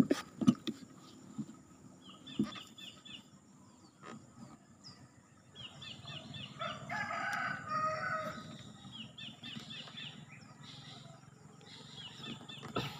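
A rooster crowing once for about two seconds, midway, among small birds repeating short high chirp phrases every few seconds. A low steady hum runs under the second half, and there are a few sharp knocks in the first half-second.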